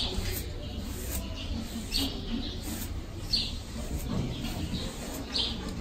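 Stiff blue flicker grooming brush swishing over a horse's coat in short strokes, about one every one to two seconds, flicking out loose shedding hair and dirt, over a low steady rumble.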